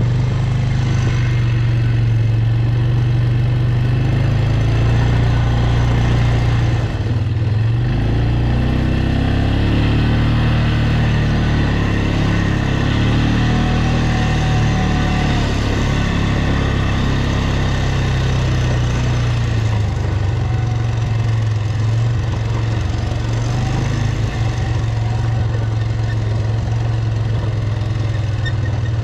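Quad bike (ATV) engine running under way. Its pitch drops about seven seconds in, then rises and falls for several seconds as the throttle changes, and settles back to a steady drone for the rest.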